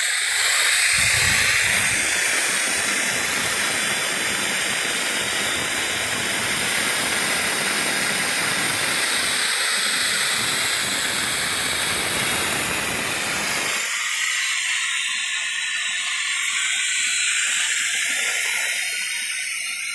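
Pneumatic waste-oil extractor running on compressed air, a loud steady hiss as it draws used engine oil from the car through its suction hose into the clear chamber. About fourteen seconds in, the lower, rougher part of the noise drops away, leaving a thinner high hiss.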